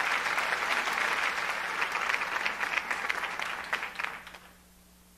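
Applause, hands clapping steadily, that dies away about four and a half seconds in.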